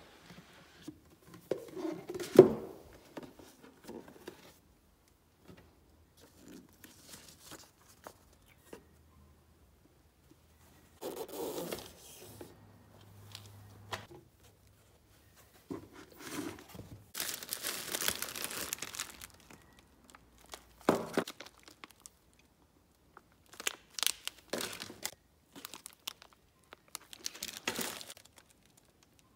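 Packaging being handled: a cardboard box and foam parts trays knocked and set down, and plastic and foil parts bags crinkling and rustling, in irregular bursts with the longest rustle a little past halfway through.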